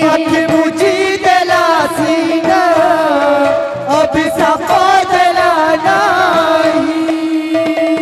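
Sambalpuri kirtan music: a woman singing a wavering devotional melody through a microphone, over a steady held note, with two-headed barrel drums beaten by hand in a quick, busy rhythm.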